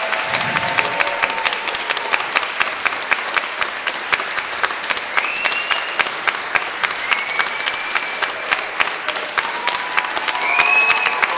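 A large audience applauding steadily, a dense patter of many hands clapping, with a few short high-pitched calls from the crowd rising over it in the middle and near the end.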